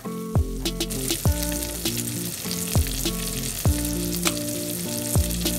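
Fish cakes sizzling steadily as they fry in a thin layer of oil in a stainless steel skillet. Background music with sustained chords and a deep drum beat about once a second plays over the frying.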